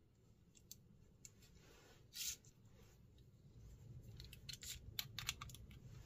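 Faint clicks and taps of a small hand-held object being handled, with a brief rasp about two seconds in and a quick cluster of clicks near the end.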